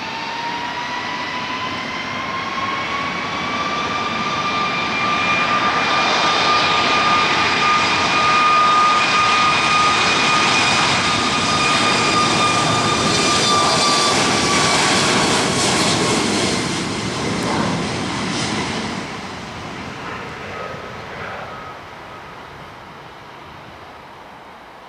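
Boeing 737 jet engines spooling up with a rising whine, then held at takeoff thrust: a steady whine over a roar that grows louder as the jet rolls past and fades away over the last several seconds.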